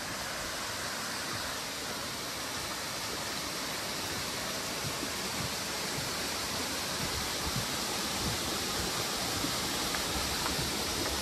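Steady rushing of Yōbai Falls, a mountain waterfall, slowly growing louder.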